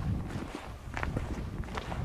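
Hiker's boots crunching on a gravelly, stony mountain path at a steady walking pace.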